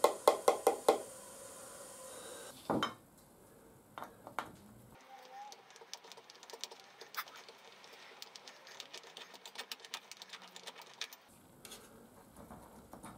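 Metal tools and pump parts clinking during hands-on disassembly of a barber chair's hydraulic pump. A rapid, even run of clicks in the first second gives way to a single knock a little under three seconds in, then scattered faint clinks.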